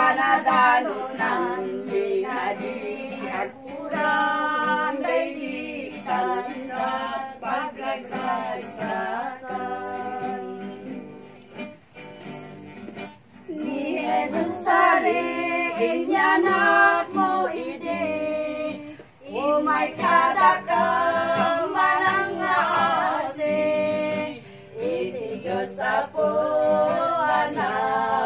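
A small group of women singing a Christmas carol in Ilokano together, with an acoustic guitar strummed along; the singing goes softer for a few seconds around the middle before coming back up.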